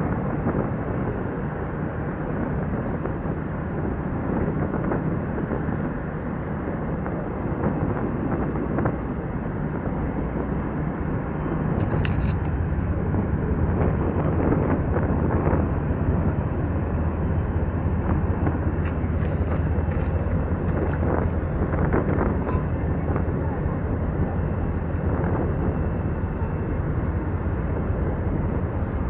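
Steady outdoor rumble of a large engine, with a constant noisy background and some wind on the microphone. A low engine hum grows louder about twelve seconds in and holds steady.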